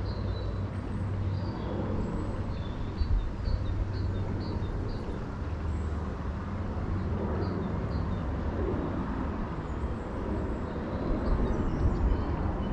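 Outdoor ambience by a town river: a steady low rumble, with short high chirps coming in quick runs and a few small knocks.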